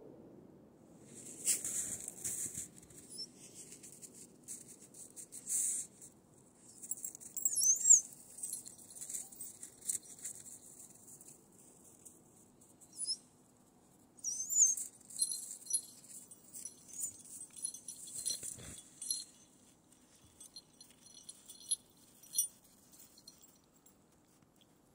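Footsteps crunching and squeaking in snow, in irregular bursts with pauses between.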